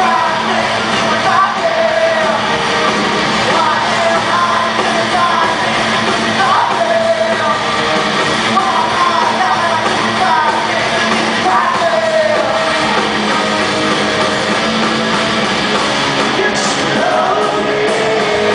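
Rock band playing live, with electric guitars, drums and a singer, heard from among the audience.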